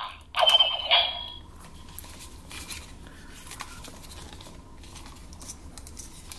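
Hard plastic toy figure and its plastic sai being handled and turned over in the hands: faint, scattered light clicks and taps of plastic. A brief high-pitched sound in the first second is the loudest part.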